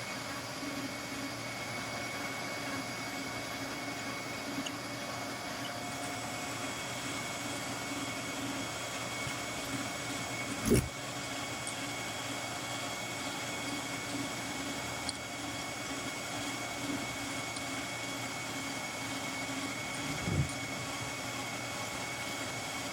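A motorized shop tool running steadily, a constant hum with a thin high whine, broken by a short knock about eleven seconds in and another near the end.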